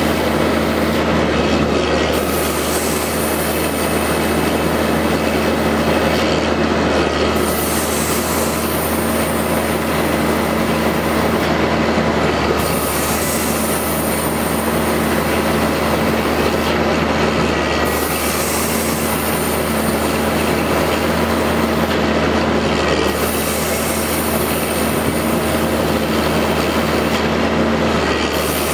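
Kaishan KL511 top-hammer hydraulic drill rig running at drilling work: a loud, steady machine noise of its power pack under the rapid rattle of the Montabert HC170 hydraulic rock drill. A high hiss dips briefly about every five seconds.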